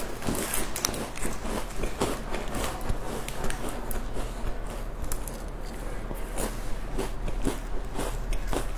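A plastic snack wrapper crinkling as it is opened, then a square cracker bitten and chewed with irregular crisp crunches; another wrapper rustles near the end.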